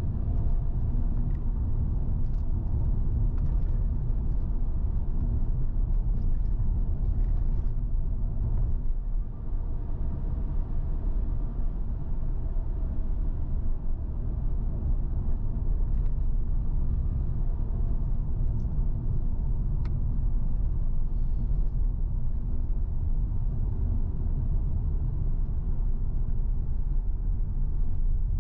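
A car driving along a road: the steady low rumble of its engine and tyres.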